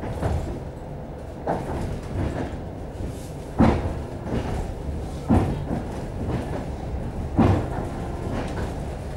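Steady rumble inside a moving commuter train carriage, with the wheels knocking over rail joints about every two seconds.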